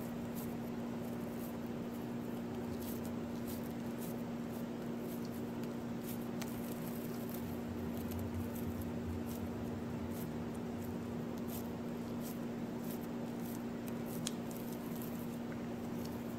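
Soft squishing and faint patting of oiled hands rolling and shaping a soft dough ball, over a steady low hum.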